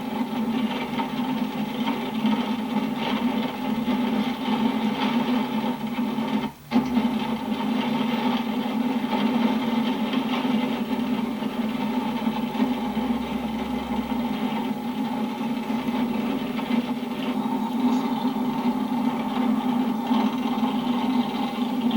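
Steady engine and road noise of a car driving, heard from inside the vehicle, with one brief dropout about six and a half seconds in.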